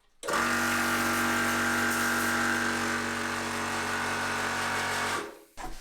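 Electric HPA high-pressure air compressor running with a steady motor hum and whine, starting sharply and cutting off after about five seconds. It feels to the owner as if it just spins without building pressure.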